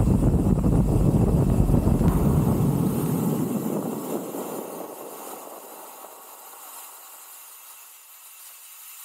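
Wind rushing over an action camera's microphone with road rumble while riding a bicycle, a dense low noise that fades away over a few seconds to a faint hiss.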